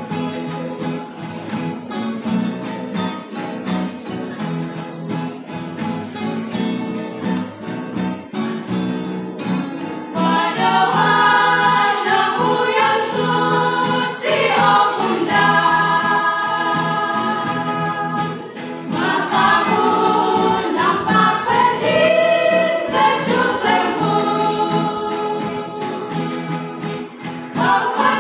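Guitar strumming chords, then a women's vocal group starts singing over the guitar about ten seconds in.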